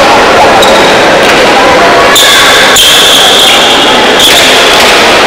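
A few sharp pelota ball impacts echoing in an indoor frontón over a loud, constant din. A steady high squeal sounds in the middle for about two seconds.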